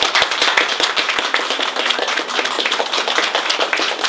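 A crowd applauding: many people clapping densely at an even level.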